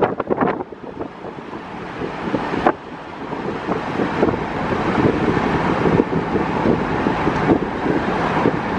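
Wind rush and road noise of an open-top 1995 Jaguar XJS V12 cruising at highway speed, with wind buffeting the microphone; the engine itself is barely heard. The rush grows louder over the first few seconds, broken by a brief knock a little under three seconds in.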